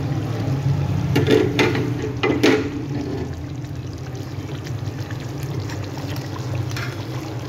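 Thick curry gravy bubbling in a pot of koftas over a steady low hum. A few clatters and liquid splashes come between about one and two and a half seconds in, as the lid comes off.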